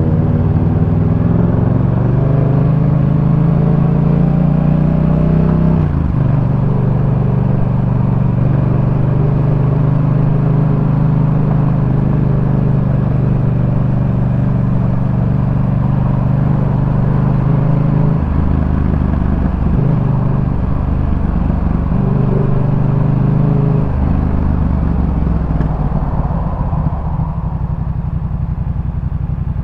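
Yamaha MT-07 parallel-twin engine running through a Jeskap K4 full aftermarket exhaust, rising in pitch as it accelerates, then dropping about six seconds in as it shifts up. It holds a steady cruise, the throttle is eased off and on a few times in the second half, and it settles lower near the end.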